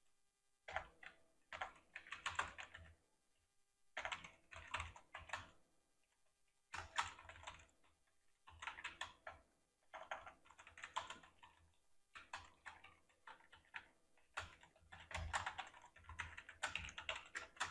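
Faint typing on a computer keyboard: quick runs of keystrokes in spurts of a second or two, with short pauses between.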